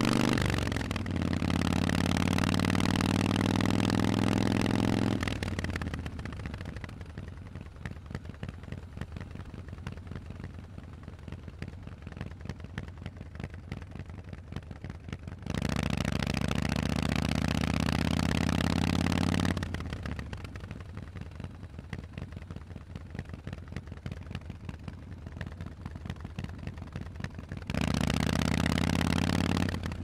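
Harley-Davidson Forty-Eight's V-twin through Vance & Hines exhaust pipes while riding. It pulls under throttle with the pitch slowly rising, with a short break about a second in, then drops to a much quieter off-throttle rumble. It opens up again twice, once around the middle and once near the end.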